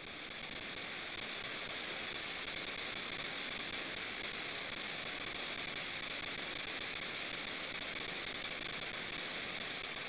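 Steady electronic static hiss that swells slightly over the first second, then holds even: noise on a video-call audio stream while its internet connection is dropping out.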